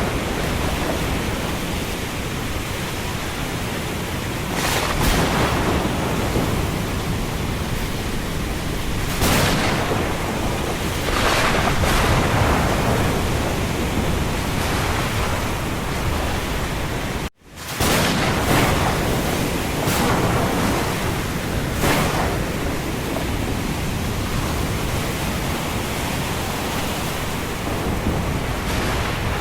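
Thunderstorm of rain and wind: a steady, dense wash of noise with several brief surges, and the sound cutting out for a split second about two-thirds of the way through.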